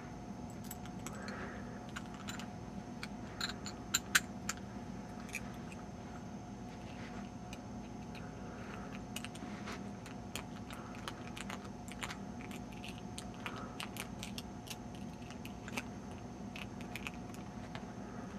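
A homemade hacksaw-blade rake being worked in and out of a Master Lock padlock's pin stack under very light tension, raking its spool (mushroom) pins: many small irregular metallic clicks and scrapes, with two louder clicks about four seconds in, over a faint steady hum.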